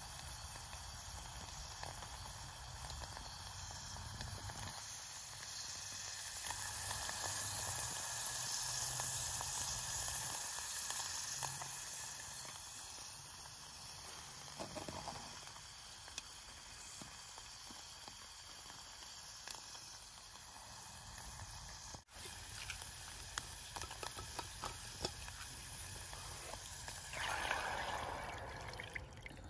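Aluminum can stove burning under a steel pot with a steady soft hiss. Near the end, water is poured from a bottle into a steel pot.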